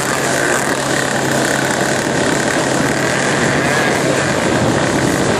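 Motorboat engine running steadily at speed under loud rushing of wind and water, with a higher, slightly wavering whine above it.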